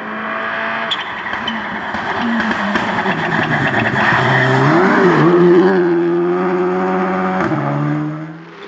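Škoda Fabia Rally2 car's turbocharged four-cylinder engine at full throttle as it approaches and passes close by, getting louder towards the middle, with a brief dip and recovery in revs about five seconds in. There are a few sharp cracks, one loud one about seven and a half seconds in, and the sound fades near the end.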